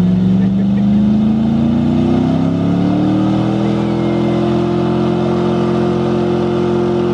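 Pickup truck engine held at high revs during a stationary burnout, with the rear tire spinning and smoking. The engine note climbs slowly over the first few seconds, then holds steady and high.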